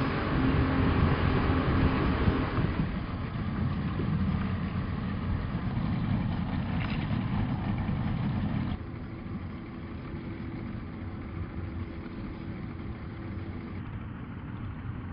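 Motorboat engine running as the boat moves, with a steady low drone; about nine seconds in it abruptly becomes quieter and carries on at that lower level.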